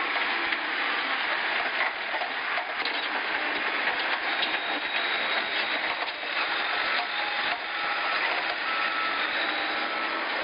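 Diesel engine of a backhoe loader running steadily as it works, with a reversing alarm beeping in short repeated tones in the second half.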